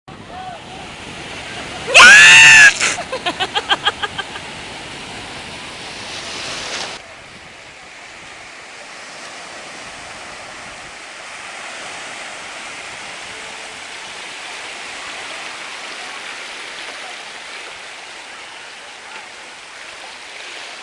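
Steady rushing wash of surf and moving water. About two seconds in there is a very loud, clipped cry, then a quick run of fading pulses.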